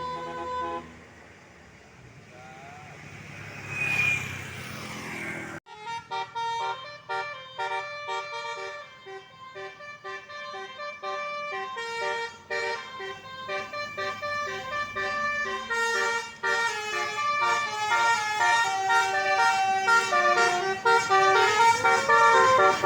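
A bus's Basuri telolet horn, a multi-tone musical air horn, playing a fast tune of short stepped notes. It starts abruptly about six seconds in, after a few seconds of vehicle noise with a brief rising whine.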